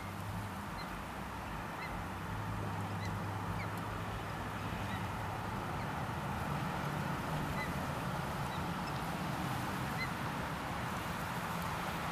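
Ospreys giving short, high, whistled chirps about once a second while mating on the nest, over a steady low background rush.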